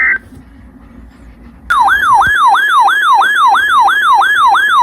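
Short burst of EAS data tones at the very start, then about two seconds in an electronic alert siren starts: a loud yelp sweeping up and down about three times a second, signalling an incoming weather warning.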